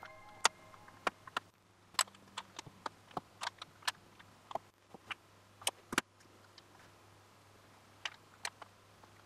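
LEGO bricks and plates clicking as hands pick them up and press them together: a run of sharp, irregular plastic clicks, with a pause of about two seconds before two last clicks near the end.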